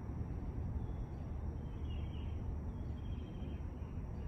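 Outdoor background noise: a steady low rumble with faint high chirping calls about two seconds in and again a second later.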